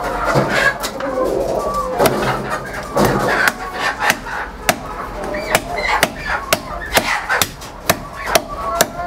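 Cleaver chopping chicken on a wooden block, irregular sharp chops about one or two a second, with chickens clucking in the background.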